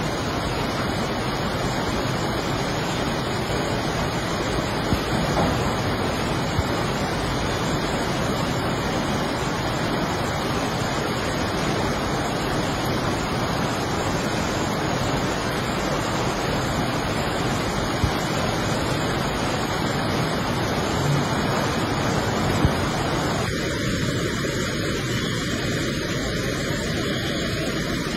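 Steady, even rushing of a fast-flowing flooded river in full spate, the brown torrent pouring past and against bridge piers and stranded barges.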